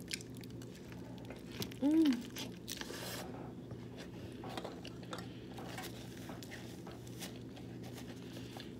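Eating sounds: scattered light clicks of utensils and a food bowl, with chewing. About two seconds in there is a brief vocal sound that rises and falls in pitch.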